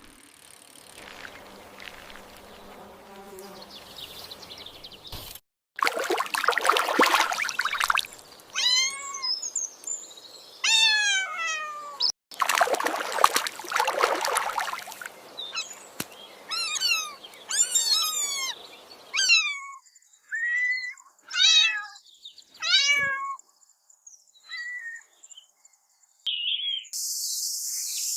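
Kittens meowing again and again in short, high, rising-and-falling calls, many in quick runs, with two loud rushing noises of a couple of seconds each among them. A steady high hiss starts near the end.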